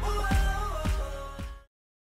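Background pop music with a steady beat, cutting off suddenly near the end.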